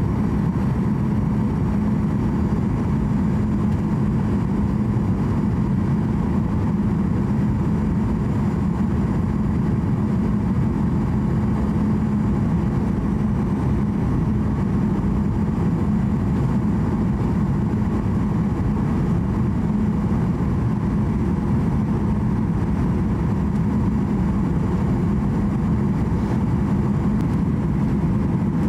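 Boeing 737-800 airliner cabin noise on final approach: a steady low rumble of the CFM56-7B engines and rushing air, with a faint high steady whine above it.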